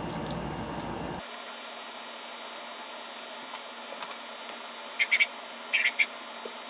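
Light clicks of plastic electric-fan parts being handled and fitted, over a faint steady hiss. Two short, high squeaky sounds come about five and six seconds in.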